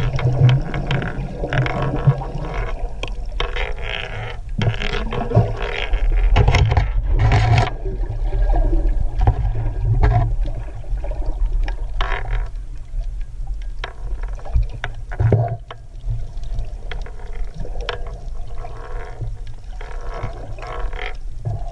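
Muffled underwater noise picked up by a camera in its housing: water movement and rumble with many irregular clicks and knocks as the camera and a net trap are handled.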